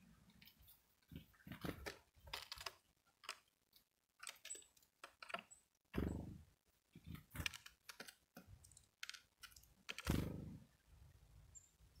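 Irregular clicks and light taps, with two louder low thuds about six and ten seconds in.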